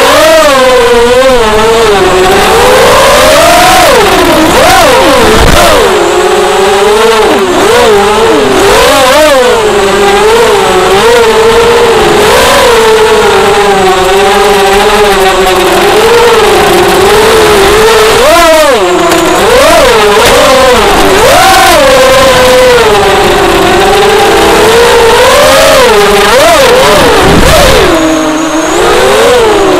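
ZMR250 racing quadcopter's brushless motors and propellers whining as heard from the onboard camera, the pitch rising and falling constantly with the throttle, over a rush of wind.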